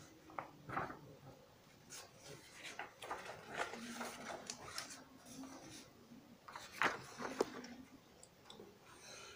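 Faint, irregular rustling and light clicks of small objects being handled, with the sharpest clicks about a second in and twice around seven seconds in.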